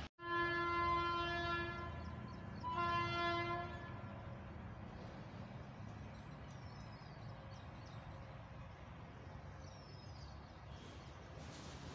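Indian Railways locomotive horn sounding two blasts from an approaching train, the first about a second and a half long and the second shorter, a second or so later. Faint birdsong follows.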